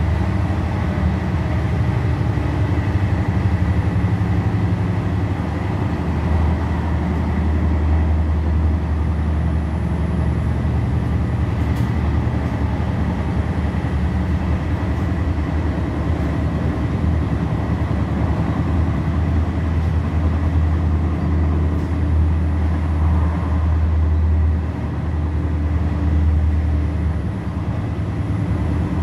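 Steady rumble of an electric regional train running at speed, heard from inside the passenger carriage, with a faint high steady tone above it.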